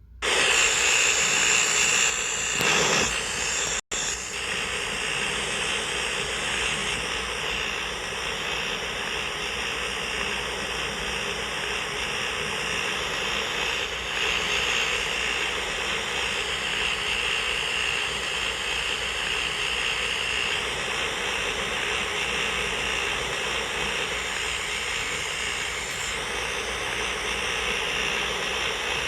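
A 2021 York central air conditioner starting up: the sound comes on suddenly, then runs steadily with a constant hum and whoosh of air. There is a brief break in the sound about four seconds in.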